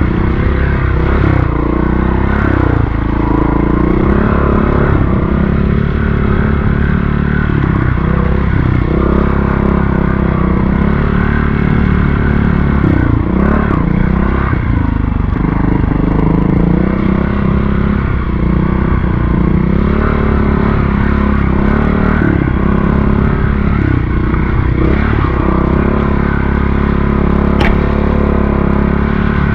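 Montesa Cota 4RT trials motorcycle's four-stroke single-cylinder engine running at low revs while being ridden, its pitch rising and falling with the throttle and dipping briefly about halfway through.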